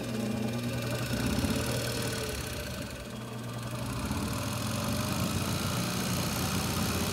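Treadmill DC motor (3/4 hp, permanent magnet) spinning freely with its cooling fan and step pulley, running under a variable speed control with a steady hum. It gets briefly quieter about three seconds in, then comes back up.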